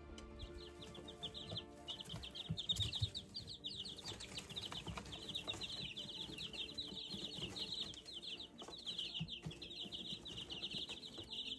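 A batch of young chicks, six-week-old pullets and cockerels, peeping constantly: many rapid high chirps overlapping. A few soft knocks come about three seconds in.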